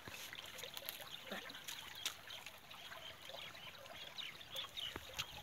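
Water trickling and gurgling in a small roadside ditch, a faint steady bubbling with a few sharp ticks.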